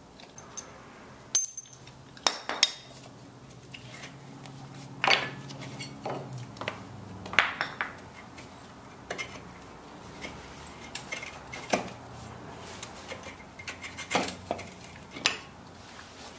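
Hand tools and a steel three-arm puller clinking and knocking against a motorcycle engine's side as they are worked, about a dozen sharp metallic clinks at irregular intervals.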